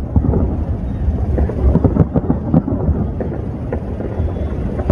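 Aerial firework shells bursting in quick succession: a dense, rolling run of booms over a low rumble, most packed together about two seconds in.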